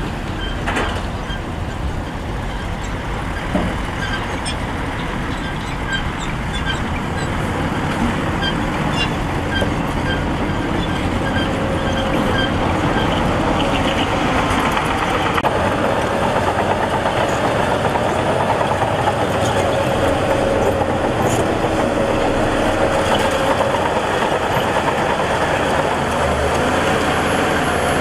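Heavy diesel earthmoving machinery running steadily at a construction site, getting louder about a third of the way in, with a steady whine joining it around the middle.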